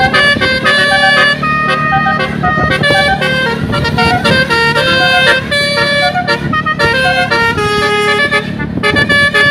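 Indonesian bus telolet horn playing a quick melody: several air-horn tones sounding together and stepping from note to note, with a steady low hum underneath.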